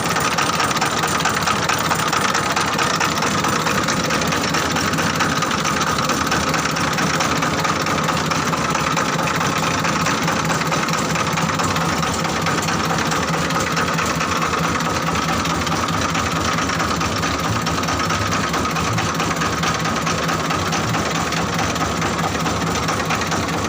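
A diesel-engined mobile crop mill (selep) running steadily under power. The engine has a knocking beat and the mill adds a constant high hum.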